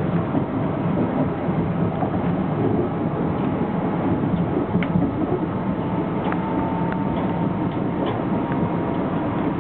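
Metro-North M3 electric multiple-unit railcar running on the rails, heard from inside the car: a steady rumble with a few sharp clicks from the wheels and track.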